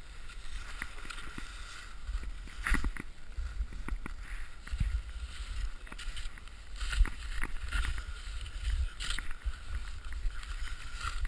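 Low rumble on an action camera's microphone, with irregular scrapes and knocks throughout, the loudest a few seconds in and near the middle.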